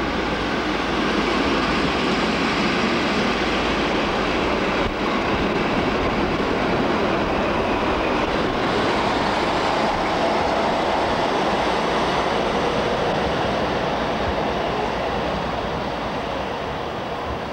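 Passenger coaches of a diesel-hauled train rolling past at close range, a steady wheel-on-rail noise that eases off slightly near the end as the DB class 215 diesel locomotive comes by.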